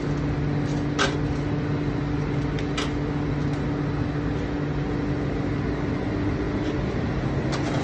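Steady hum and rush of a commercial kitchen's ventilation, with two light clicks of metal tongs on a plate about a second and about three seconds in.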